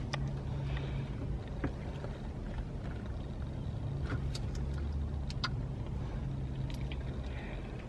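Steady low hum of a car idling, heard from inside the cabin, with a few faint light clicks scattered through it.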